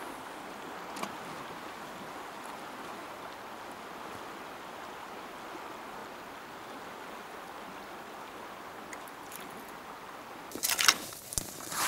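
Steady rush of fast river water at Big Fishhook Rapids on the Pelly River. Near the end it gives way abruptly to loud crackling and rustling of footsteps through forest undergrowth.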